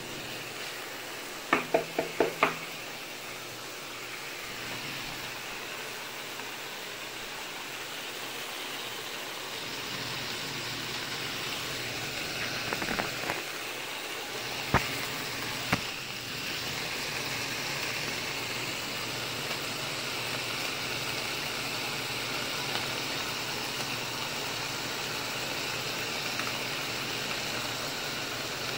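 Pieces of crappie and striper fish sizzling in a nonstick skillet, a steady frying hiss that grows a little louder about ten seconds in. A spatula clacks against the pan four times in quick succession near the start, with a few more single clacks in the middle.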